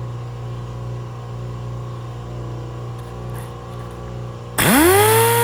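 A steady low machine hum, then about four and a half seconds in a dual-action (DA) sander with 80-grit paper starts up suddenly, its whine rising fast as it spins up and settling into a steady high whine.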